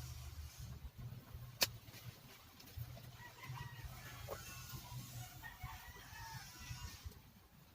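A rooster crowing, with a single sharp click about one and a half seconds in.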